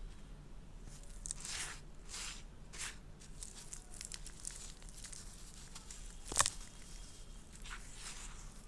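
Dry, dusty red dirt crumbling and crushing in a string of soft crunches, with one sharp crack about six and a half seconds in.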